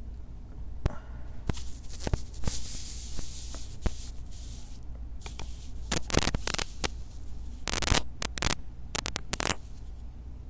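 Close rustling and scraping with many scattered clicks, the sound of a handheld recorder being moved and handled, over a steady low hum. The scraping comes thickest in a run of short bursts about six to nine and a half seconds in.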